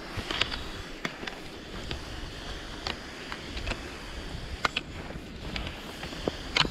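Fischer Twin Skin cross-country skis sliding over thin, uneven snow with a steady scraping hiss, broken by irregular sharp clicks from the poles and skis striking the surface, several close together near the end.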